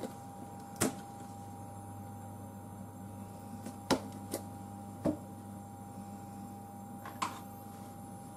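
Quiet kitchen with a steady electrical hum, broken by five short clicks and light knocks of a seasoning bottle and utensils being handled, the sharpest about a second in and about four seconds in.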